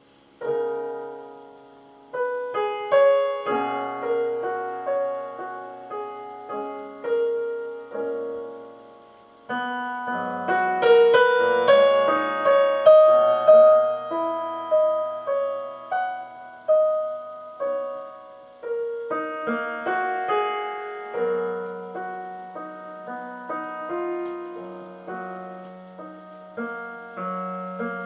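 Solo piano music: single notes and chords struck one after another, each ringing and fading, with a short pause about nine seconds in.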